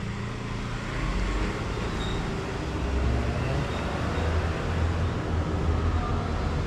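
Steady low background rumble and noise, growing slightly louder about a second in, with no distinct events.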